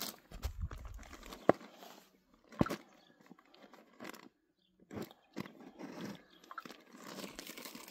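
Thin plastic bag crinkling and rustling as hands work at its knotted neck, with two sharp clicks about one and a half and two and a half seconds in.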